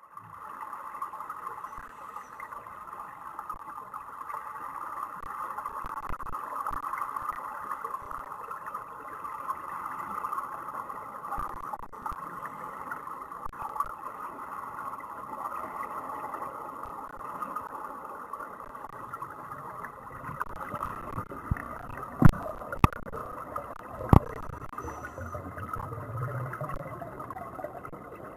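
Steady underwater noise as picked up by a camera in a waterproof housing, with three sharp knocks near the end.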